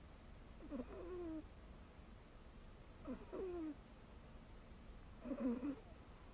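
Ragdoll cat snoring in deep sleep, making three squeaky, peeping breaths about two and a half seconds apart.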